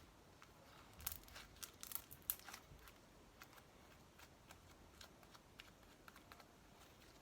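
Sticky glue slime activated with Tide being worked by hand, giving a quick run of faint clicks and crackles about one to three seconds in, then a few scattered clicks.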